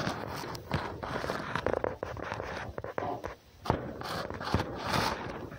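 Close rustling and scraping in straw against a wooden box, with a few sharp knocks and bumps.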